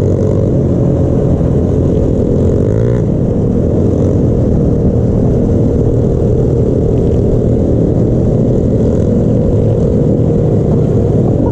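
Pit bike engines running steadily as a group of riders cruises along, with the nearest bike loudest, the dense low rumble of the ride underneath, and one brief rise and fall in engine pitch about three seconds in.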